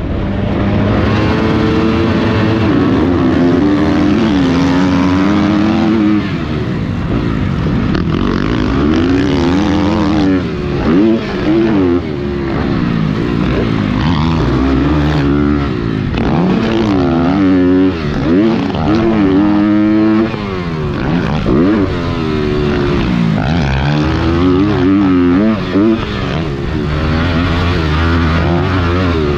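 Motocross dirt bike engine under race load, revving hard and falling back over and over as the rider accelerates, shifts and rolls off for corners.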